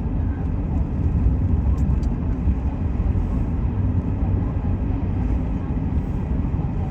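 Steady low rumble of a Chevrolet truck driving on a snowy road, heard from inside the cab: engine and tyre noise with no change in pace.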